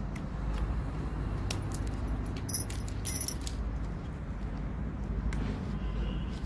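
Hard plastic interlocking building blocks clicking and clattering as pieces are picked through and pressed together, with scattered sharp clicks, the loudest a little over halfway in, over a steady low background rumble.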